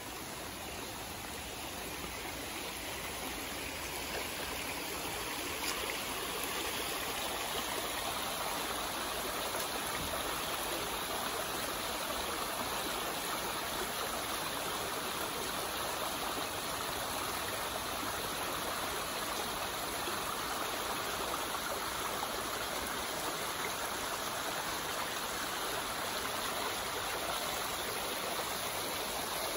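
Small shallow stream flowing over rocks, a steady rush of water that grows louder over the first few seconds and then holds steady.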